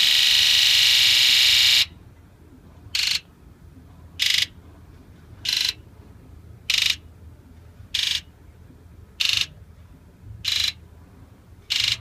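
Fuel injector solenoids of a 2001 Ford 7.3 Powerstroke diesel buzzing during a key-on, engine-off buzz test. All eight buzz together until just under two seconds in, then each injector buzzes alone in turn: eight short buzzes about a second and a quarter apart. The injectors are new and none of them is sticking.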